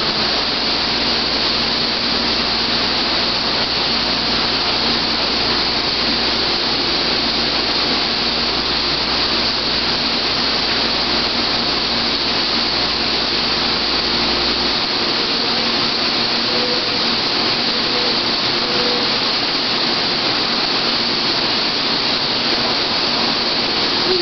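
Steady rushing noise of an artificial waterfall pouring into an otter exhibit pool.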